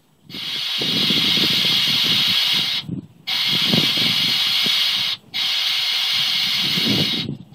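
Compressed air at about 90 psi blasting through an RV's propane gas line and out the open fitting, a loud hiss in three long bursts with short breaks about three, five and seven seconds in, and an uneven low sputter underneath. It is a blow-out test for a blockage in the line.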